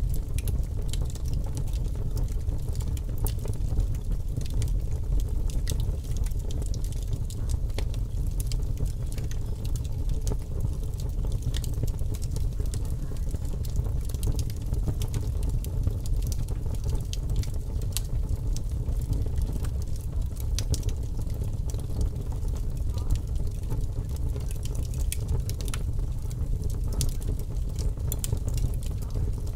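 Fire crackling: many small, sharp pops and crackles scattered over a steady low rumble.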